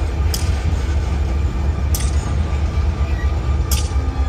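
EMD SD40-2R diesel-electric locomotive with its 16-cylinder two-stroke 645 engine running as it rolls past, giving a deep, steady rumble. A sharp click comes about every two seconds, three times in all.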